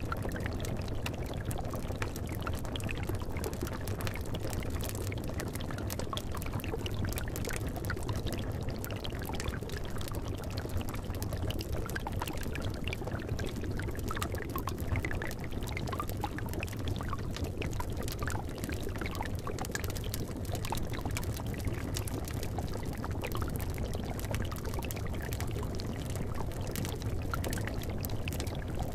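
Cauldron of liquid bubbling steadily, a dense, even stream of small pops and gurgles, with a wood fire crackling beneath it.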